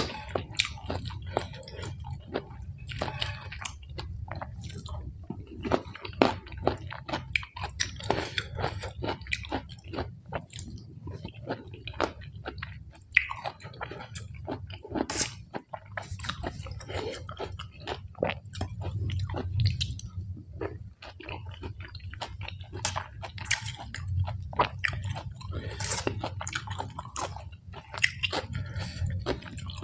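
Close-up eating sounds: wet chewing and crunching of rice noodles in fish-curry sauce with crisp raw vegetables, with frequent sharp clicks of a spoon and fork against a steel tray, over a low steady hum.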